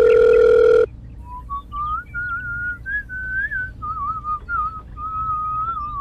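A loud, steady electronic phone-ringing tone that cuts off suddenly under a second in, followed by a whistled tune: one wavering melody line.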